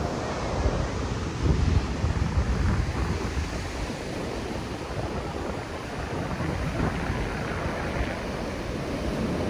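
Wind buffeting the microphone in uneven low rumbling gusts over the steady wash of ocean surf.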